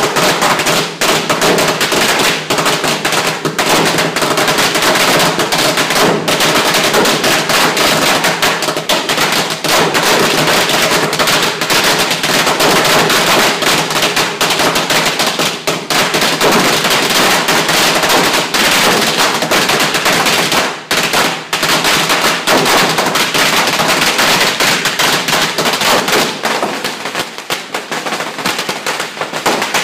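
A long string of firecrackers going off, rapid continuous cracking with a brief gap about twenty seconds in, thinning out near the end.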